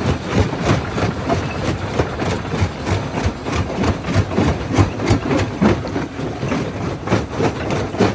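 Primary jaw crusher running, with an even knocking rhythm of about four strokes a second over a steady low rumble.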